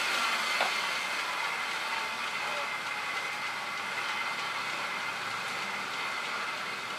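Road bike tyres spinning on a set of bicycle rollers: a steady rolling whir with a faint high whine, easing off slightly over the first couple of seconds and then holding steady.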